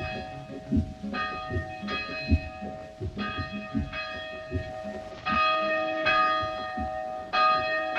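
A church bell tolling, struck four times about two seconds apart, each stroke ringing on into the next, over a low, regular thudding beat.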